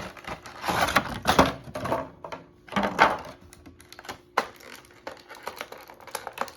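Toy packaging being handled and opened by hand: a few short rustling, scraping bursts of plastic and cardboard, then a run of light clicks and taps.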